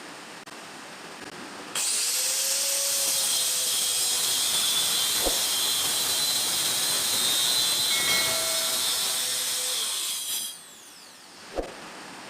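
Angle grinder starts abruptly and runs steadily with a loud high hiss for about eight seconds, then is switched off and winds down with a falling whine. A single sharp click comes near the end.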